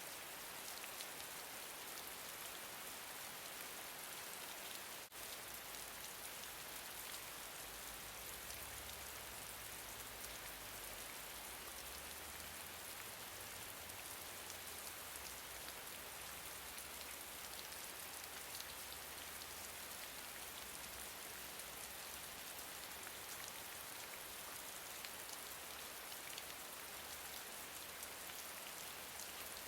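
Steady gentle rain: a dense, even hiss of falling rain with the fine patter of many drops striking a surface. There is a brief dip in level about five seconds in.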